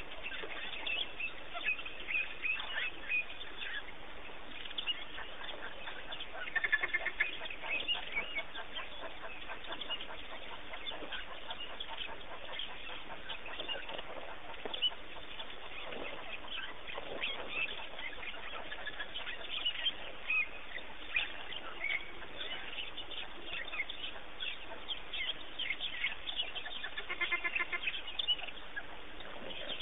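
African wild dogs giving high, bird-like twittering calls, the social contact calls of a pack. Many short calls are scattered throughout, thickest about seven seconds in and again near the end, over a steady hiss.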